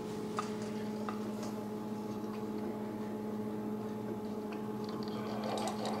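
Keurig K-Supreme coffee maker brewing: a steady machine hum with a few faint clicks, and near the end a hiss and sputter building as hot coffee starts to flow into the mug. The machine is running normally again after its tripped thermal switch was reset.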